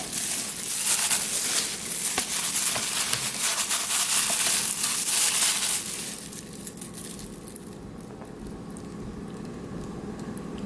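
Chopped onions and bell peppers being tipped into a bowl and worked in with jerk-coated oxtails: a crackly, rustling noise full of small clicks. It stops about six seconds in, leaving only a faint background.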